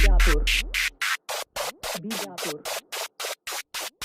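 Electronic DJ remix music built for speaker testing. A heavy sub-bass drone cuts off about a second in, leaving rapid stuttering hiss-like beats, about six a second, with chopped vocal fragments.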